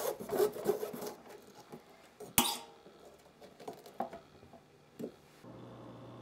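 Kitchen knife cutting through a pumpkin's rind, crunching and scraping during the first second, with one sharp knock about two and a half seconds in and a few smaller clicks after. Near the end a steady low hum takes over.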